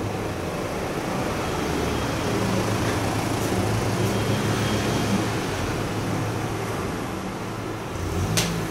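A vehicle's low running hum with noise over it, swelling over the first few seconds and easing off, with a sharp knock near the end.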